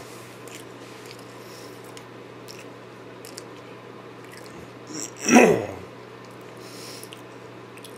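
A man chewing a deep-fried Hostess snack cake with a crispy crust: faint, quiet mouth sounds over a steady low hum. About five seconds in he lets out one short, loud groan that falls in pitch.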